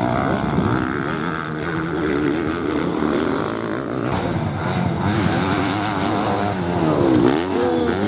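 Motocross motorcycle engine revving hard, its pitch rising and falling with the throttle and gear changes, with a sharp drop and climb about seven seconds in.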